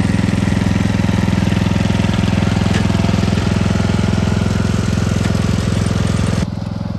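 Small lawn mower engine running steadily with a fast, even firing pulse. The sound drops abruptly about six and a half seconds in.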